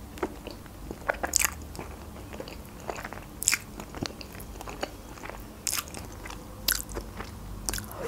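Close-miked mouth sounds of eating creamy spaghetti: noodles slurped off a fork and chewed, with irregular sharp wet smacks and clicks every second or so.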